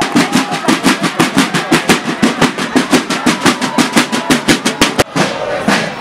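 Parade marching drums beating a fast, even rhythm of about six strokes a second, cutting off suddenly about five seconds in.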